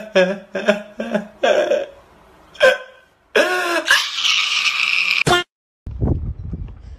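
A man crying: a run of short sobbing gasps, then one long loud wail that cuts off suddenly about five seconds in. After a short silence, low outdoor background noise follows.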